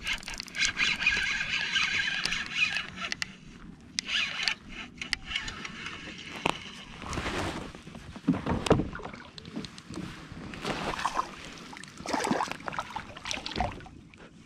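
Spinning reel being cranked, a steady whir for the first few seconds. Then come irregular splashes of a small largemouth bass being reeled to the kayak, with knocks and scrapes on the hull.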